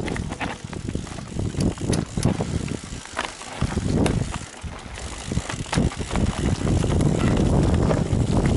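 Mountain bike riding over a rough trail: a low rumble of tyres on dirt and stones, with irregular clattering knocks from the bike as it jolts over bumps.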